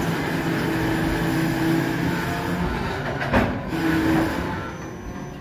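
Freight train of open hopper cars rolling slowly past with its brakes applied: a steady grinding wheel-and-brake noise with a low squealing tone, one sharp knock about three and a half seconds in, growing quieter near the end.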